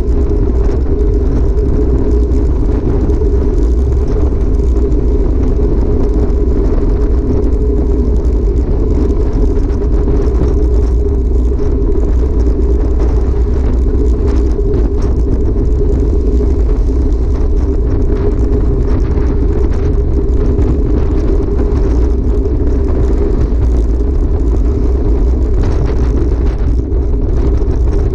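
Steady wind rush over a handlebar-mounted camera on a road bike riding at speed, with a deep rumble underneath.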